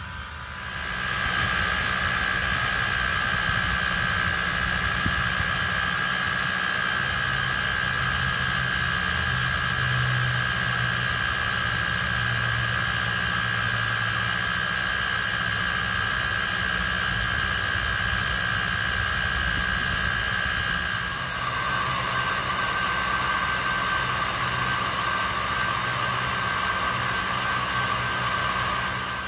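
Creality Falcon 2 diode laser cutter running a cut through a 2x4, its air assist and fans giving a steady hiss with a whine in it. The hiss starts about a second in, and the whine drops lower about two-thirds of the way through.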